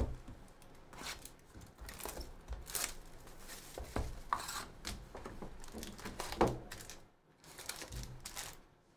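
A cardboard trading-card hobby box being opened and its foil-wrapped card packs pulled out and stacked: crinkling foil, cardboard rustling and irregular knocks, the loudest knock about two-thirds of the way through.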